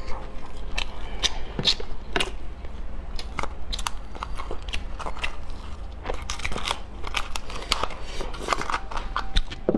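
Close-miked eating sounds: a small metal utensil clicking and scraping against the inside of a cooked brown crab's shell, with chewing in between. The clicks come irregularly, several a second.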